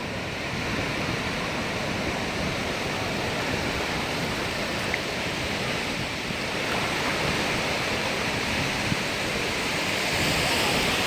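Sea surf washing on the shore, a steady rush of waves that swells louder near the end.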